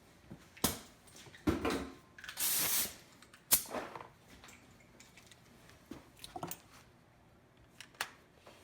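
Scattered clicks and knocks of hand tools and metal parts being handled while a sway bar disconnect is bolted in place, with a short hiss-like burst about two and a half seconds in.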